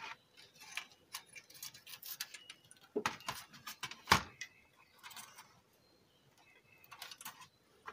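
Handling noise from a metal car stereo chassis and its loose wires on a workbench: scattered light clicks and taps, with one louder knock about four seconds in as the unit is set down.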